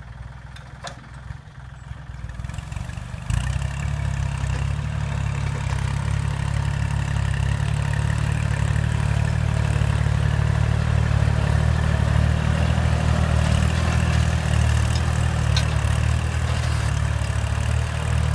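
Kubota L3608 tractor's diesel engine running steadily while plowing. It grows louder over the first few seconds and jumps louder about three seconds in, then holds a steady drone.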